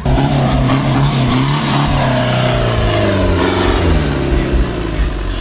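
Modified 4x4 off-road pickup's engine revving under load as it climbs a dirt mound, its note wavering up and down. A thin high whine glides slowly down in pitch through the second half.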